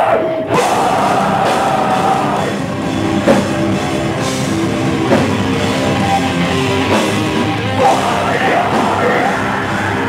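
Metal band playing live: heavily distorted electric guitar riffing over drums, with screamed vocals.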